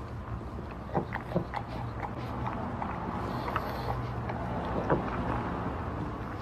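A pug eating from a ceramic bowl with its face pushed into it: irregular clicks and smacks, a quick run of them about a second in and another near the end, over a steady low hum.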